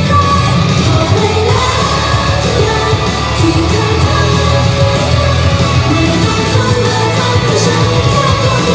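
Loud pop-rock idol song played live over a PA, with female voices singing over a driving beat.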